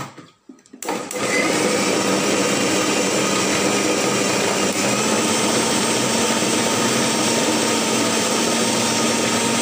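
Usha food processor motor running steadily, mincing raw meat with onions, herbs and green chillies. It starts about a second in, after a few light knocks of the lid going on.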